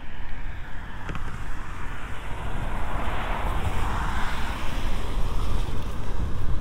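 A car passing on the road, its tyre noise swelling to a peak about four seconds in and then fading. Under it is a steady low rumble of wind on the microphone.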